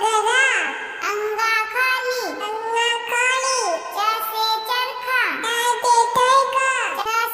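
A child's voice singing a Hindi alphabet nursery song, one letter and its word at a time.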